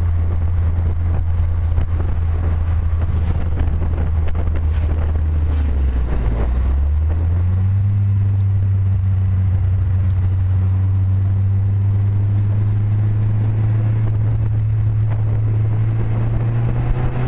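Car engine droning steadily while driving. Its low note dips about six seconds in, then steps up to a higher note that slowly rises for the rest of the stretch.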